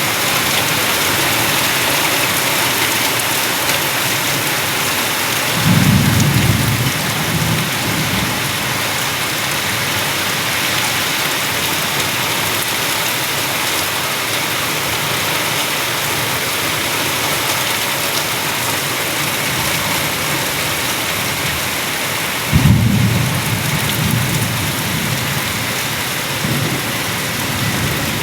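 Heavy rain falling steadily with a dense hiss. A low rumble of thunder breaks in suddenly about six seconds in, and another about twenty-three seconds in.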